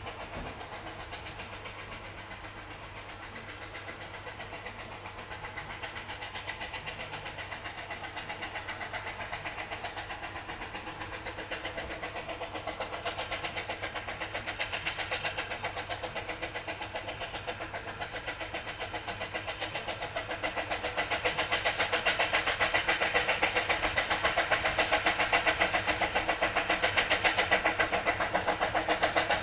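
Narrow-gauge steam locomotive working hard up a 1 in 50 gradient, its exhaust beats in a fast, even rhythm and growing steadily louder as it approaches.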